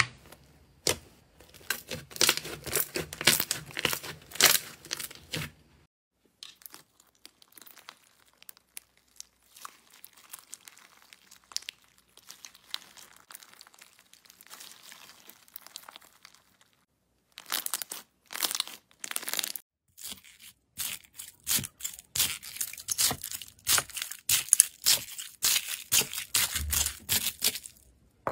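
Hands squeezing and stretching slime, making rapid sticky crackles and pops. The crackling is loud at first, fainter through the middle with a short pause, then loud again.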